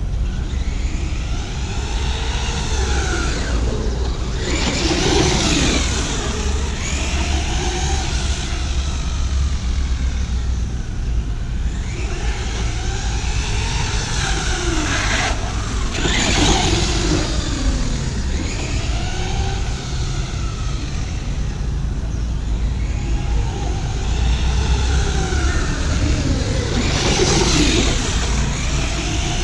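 Radio-controlled monster truck's electric motor and gears whining, the pitch rising and falling over and over as it speeds up and slows down. A steady low rumble runs underneath, and three louder surges of hiss come about 5, 16 and 27 seconds in.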